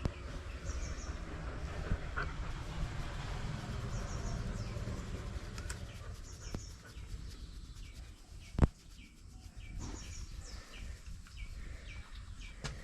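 Birds calling over and over in short, quick chirps, over a low rumble that fades about halfway. A single sharp knock comes about two-thirds of the way through and is the loudest sound.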